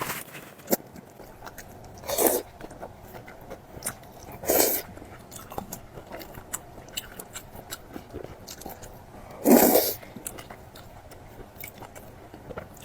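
A person eating close to the microphone: chewing with many small wet clicks, broken by three louder, noisy mouthfuls about two, four and a half, and nine and a half seconds in, the last the loudest.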